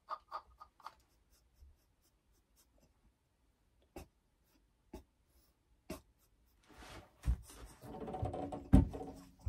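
Close rustling and rubbing with two dull thumps near the end, as a person moves right up against the recording device and handles it. Before that, a few fading repeats of a short tone in the first second, then near quiet broken by single soft clicks.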